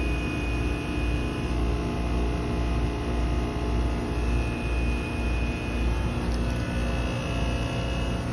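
2008 Trane XR13 heat pump running in its defrost cycle: a steady mechanical drone with a low rumble, a hum and a thin high whine over it.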